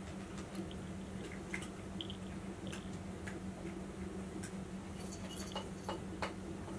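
Faint, irregular wet clicks of a cat licking its paw while grooming, over a steady low electrical hum.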